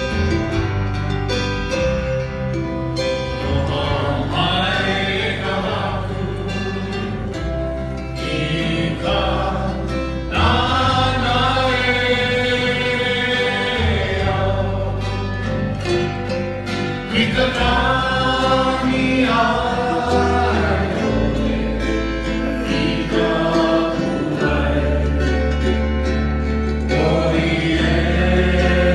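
A Christian worship song: singing voices over instrumental backing, with sustained low bass notes.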